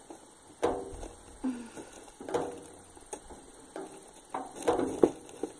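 Skunk live trap being handled, rattling and knocking in a series of about eight sharp knocks. Several knocks carry a short ringing tone.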